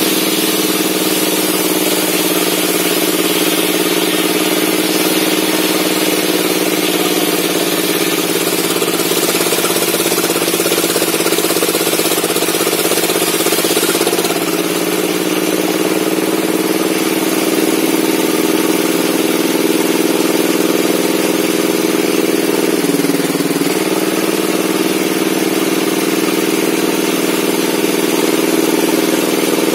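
Table saw used for sawing logs, running steadily with a loud, even hum and hiss. Its pitch sags briefly twice, near the middle and about three-quarters through, then recovers.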